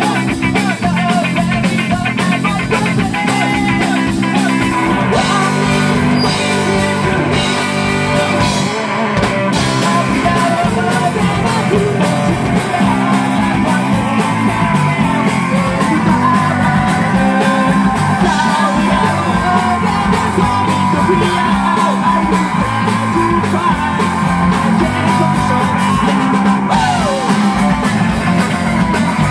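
Live rock band playing loud: drum kit, electric bass and guitar, with a singer at the microphone.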